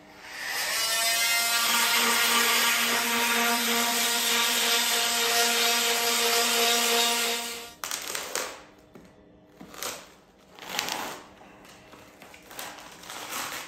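Oscillating cast saw running and cutting through a plaster leg cast, a steady motor whine over a gritty hiss, for about seven seconds. It stops abruptly, followed by several short, irregular bursts of noise as the cut plaster cast is pried open by hand.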